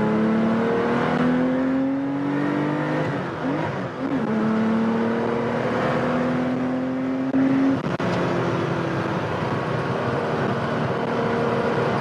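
A Porsche 911 SC's rebuilt 3.2-litre air-cooled flat-six, with special cams, pulling hard through the gears: the revs climb, dip at a shift about three and a half seconds in, climb again, then drop sharply near eight seconds and run on steadily.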